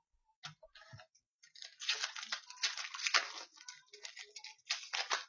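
Hands opening a hockey card pack: a few light clicks, then crinkling and rustling of the pack wrapper and cards in two bouts, the second near the end.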